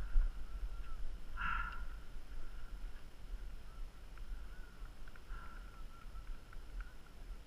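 Skis sliding over packed snow with a louder scrape of the edges about one and a half seconds in, under a steady low rumble of wind buffeting the camera's microphone.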